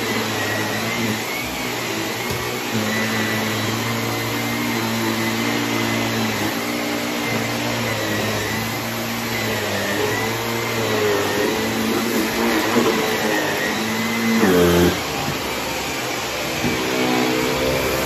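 Shark upright vacuum cleaner running steadily as it is pushed back and forth over a rug, its motor tone shifting with the strokes. About fourteen and a half seconds in, the tone briefly drops sharply and comes back up.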